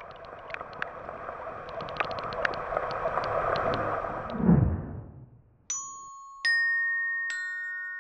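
Logo sound effect: a bubbling, crackling underwater wash that swells and ends in a deep falling whoosh, then three bright bell-like notes struck one after another, each left ringing on.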